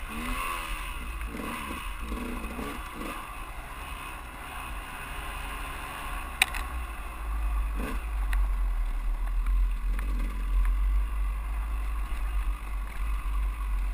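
Two-stroke single-cylinder engine of a 2001 KTM 200EXC dirt bike running on a trail ride, its pitch rising and falling in the first few seconds, under heavy wind rumble on the camera microphone. A sharp click about six seconds in, and the wind rumble gets louder in the second half.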